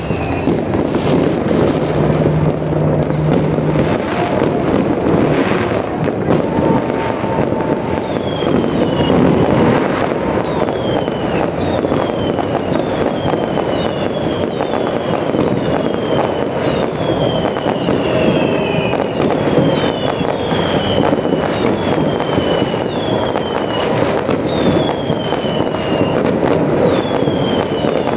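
Fireworks display going off without a break: dense crackling and popping of many bursts and firecrackers. From about eight seconds in, short falling whistles repeat roughly once a second over the crackle.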